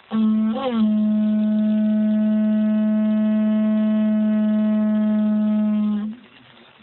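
Conch shell blown as a horn in one long, steady note of about six seconds, with a brief wobble in pitch just after it starts, then cut off sharply.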